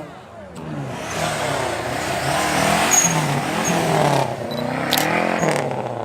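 A high-performance car engine revving and accelerating, its pitch falling and rising several times.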